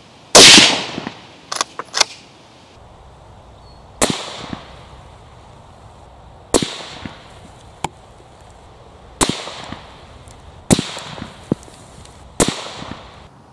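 Beretta BRX1 straight-pull rifle in 6.5 Creedmoor, fitted with a sound moderator, firing six shots two to three seconds apart, the first the loudest. Short clicks between some of the shots come from the straight-pull bolt being cycled.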